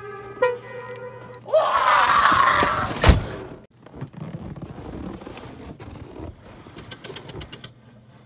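Music notes fade out, then about a second and a half in a man lets out a loud scream for over a second, ending in a single sharp thump; after that come only faint scattered knocks.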